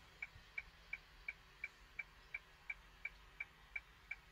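Hazard-light flasher of a Hyundai Porter 1-ton truck ticking steadily with the engine off, about three faint clicks a second.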